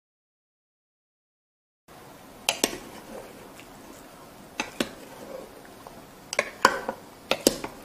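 Silent for about the first two seconds, then a wooden spatula knocks and scrapes irregularly against the inner pot of an electric rice cooker as it stirs braised pork ribs in their sauce, about eight sharp clacks in all, the loudest near the end.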